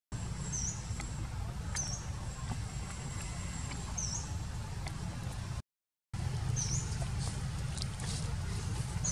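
Outdoor ambience: a steady low rumble with short, high chirps every second or two and a few faint clicks. The sound cuts out completely for about half a second around halfway through.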